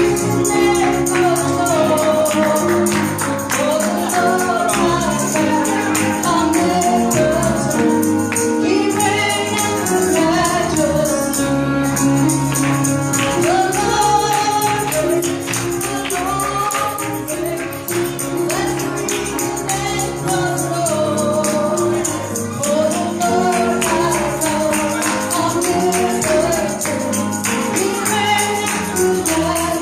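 Live gospel worship music: a group of voices singing with a tambourine shaking along throughout.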